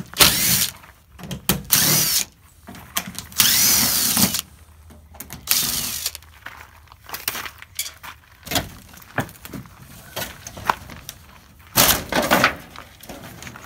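Cordless drill running in several short bursts as it backs drywall screws out through the edge of aluminium RV siding. Short clicks and knocks fall between the bursts.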